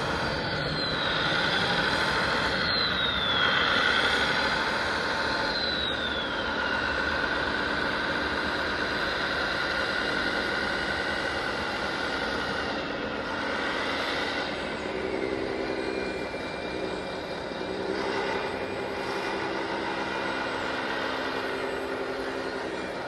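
Radio-controlled model wheel loader and trucks at work: a steady mechanical whine of small motors and hydraulics, with three falling whines in the first several seconds. From about halfway through, a lower steady hum joins in.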